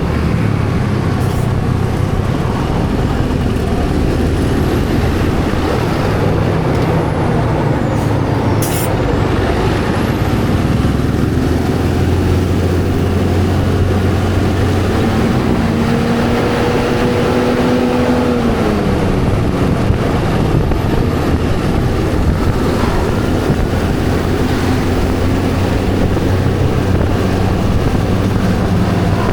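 Steady motor-traffic noise of engines and tyres on the road, with a pitched tone held for about two seconds past the middle that drops in pitch as it ends.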